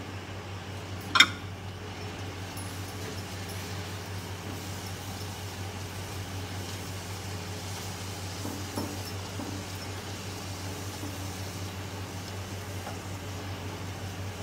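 Ragi puri deep-frying in hot oil in a kadai, the oil sizzling faintly and steadily over a low steady hum, with a sharp metal clink about a second in.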